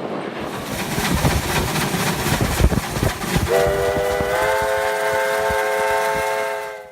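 A freight train rolling past with rumbling, knocking wheels over the rails, then about halfway through a diesel locomotive's multi-chime air horn sounds one long chord, which cuts off abruptly at the end.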